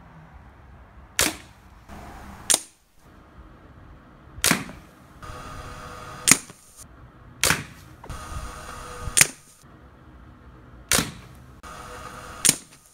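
Crosman Springmaster 795 .177 break-barrel spring-piston air rifle being shot at targets: eight sharp cracks, coming in pairs about every three seconds.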